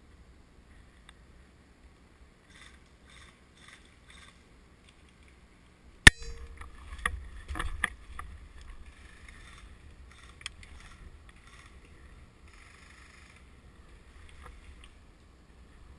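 Handling and movement noise from a player on foot: soft scuffing steps, then a single sharp, loud click about six seconds in, followed by a flurry of knocks and rustles and a few scattered clicks.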